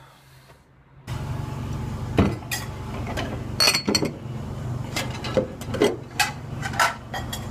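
Dishes and cutlery clinking and clattering, several sharp knocks and clinks over a steady low hum, starting about a second in after a quiet moment.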